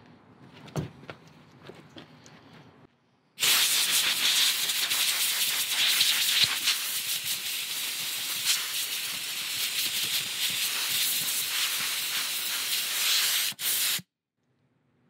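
Compressed-air blow gun blasting a steady hiss of air at the plastic fuel tank's inlet opening, clearing out trimming debris. It starts about three seconds in, runs for about ten seconds with a brief dip near the end, then cuts off suddenly.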